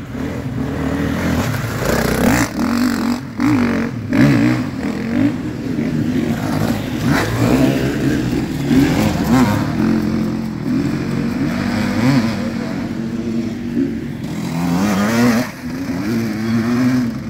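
Two-stroke enduro dirt bike ridden over a muddy trail. The engine revs up and down with repeated throttle blips as it comes up, passes close and pulls away.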